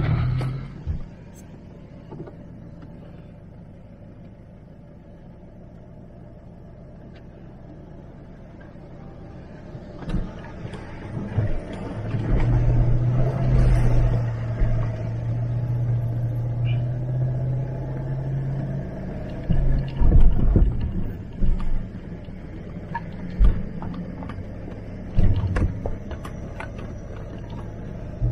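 Range Rover L322 3.6 TDV8 diesel heard from a dash cam inside the cabin, driving slowly over a rough dirt track. A low, quiet engine hum grows louder about ten seconds in into a steady drone, then several knocks and thumps come through in the last few seconds as the car goes over bumps.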